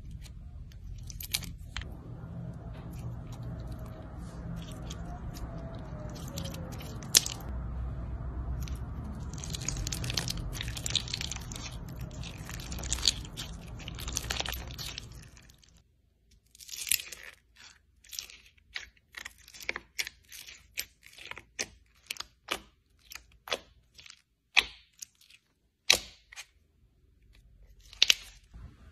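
Bead-filled slime squeezed and pressed by hand, crackling and crunching with a low rumble underneath. About halfway through, the crackle gives way to separate sharp pops and crunches, about one or two a second.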